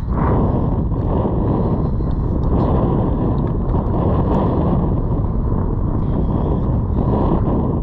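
Wind buffeting the action camera's microphone: a steady, loud, low rush of noise.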